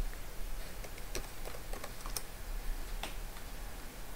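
Computer keyboard typing: a handful of irregular, scattered keystroke clicks.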